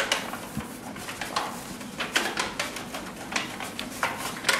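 Hands pressing and spreading pizza dough in a metal baking tray, with a string of light taps and knocks on the tray.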